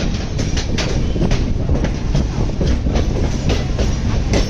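Passenger express train rolling through the station, its wheels clicking irregularly over rail joints and points above a loud, steady low rumble.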